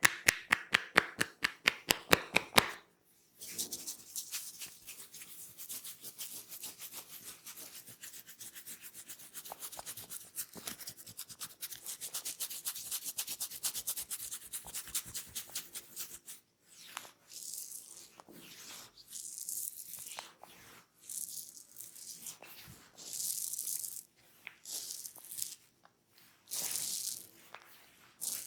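Hands massaging a head. It opens with fast, even tapping of about six strikes a second, which stops near 3 seconds. Then comes a steady stretch of quick rubbing and scratching over the scalp and hair, which breaks into separate rubbing strokes about a second long, with short pauses between them, from about halfway through.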